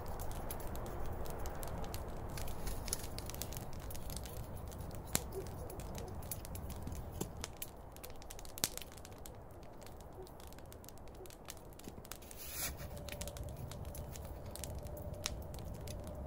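Wood campfire crackling with scattered sharp pops, two louder ones about a third and halfway through, over a low steady outdoor background.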